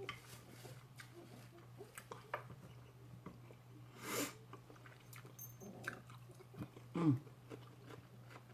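A person chewing food close to the microphone: soft wet mouth clicks and bites, with a brief noisy burst about four seconds in, over a faint steady low hum.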